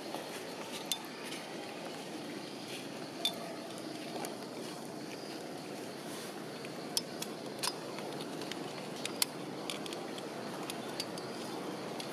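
Outdoor ambience: a steady low background rumble, with scattered sharp clicks and ticks, about eight of them, spread irregularly through it.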